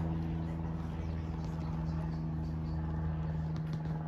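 Steady low mechanical hum of a running engine or motor, holding one pitch.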